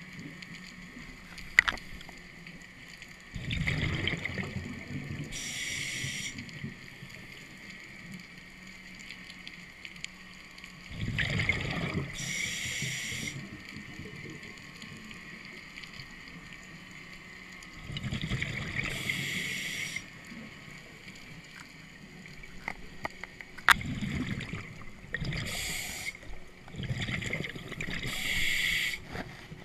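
Scuba diver breathing through a regulator underwater, about four breaths, each a gurgling burst of exhaled bubbles followed by the hiss of an inhale through the demand valve. Two sharp clicks, about 1.5 s in and near the end.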